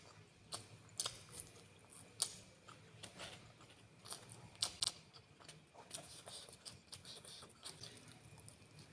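A person eating close to the microphone: chewing, with irregular crisp clicks and crunches, a pair of sharper ones about five seconds in.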